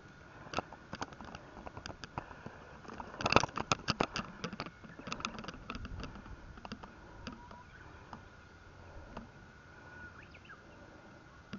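A run of sharp clicks and taps close to the microphone, densest and loudest about three to four seconds in and thinning out later, over a faint steady high tone.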